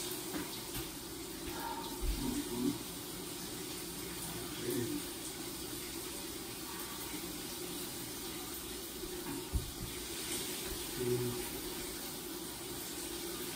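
Shower running steadily behind a glass door, an even hiss of falling water in a small tiled room, with a couple of dull thumps.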